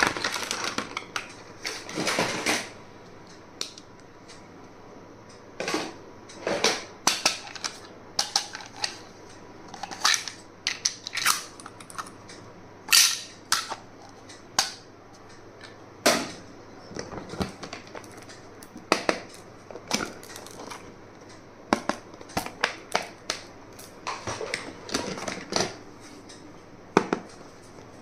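Stationery items and their plastic and cardboard packaging being handled: irregular sharp clicks, taps and short rustles, coming in spells with brief pauses between them.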